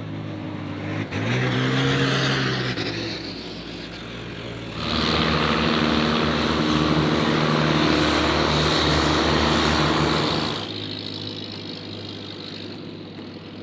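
Engines of tourist boats passing close by. One engine rises and falls in the first few seconds. From about five seconds in, a longtail boat's louder engine runs steady with the rush of its wake for about six seconds, then drops away.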